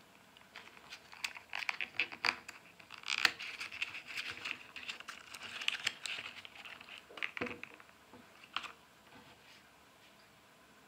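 Small printed foil wrapper of a toy packet crinkling and tearing as fingers open it: a run of irregular crackles that dies away about nine seconds in.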